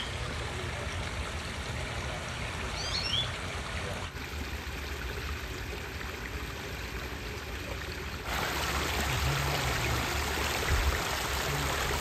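Water running and trickling steadily over a rock pondless waterfall, louder from about eight seconds in. A small bird chirps briefly near the start and again about three seconds in.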